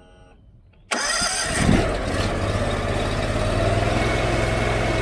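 Honda iGX800 V-twin fuel-injected engine started on the key: it cranks and catches about a second in, then settles into a steady run. It has just been fitted with replacement ignition coils and new plugs to cure bogging down under load.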